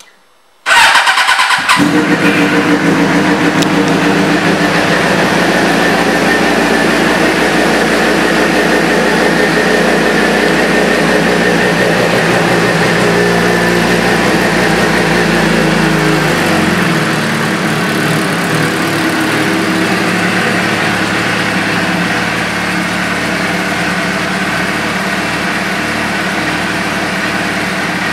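2007 Suzuki GSX-R 750's inline-four engine, breathing through an aftermarket exhaust, cranks briefly and starts about a second in, then idles steadily. A little past halfway the idle speed drops and settles lower.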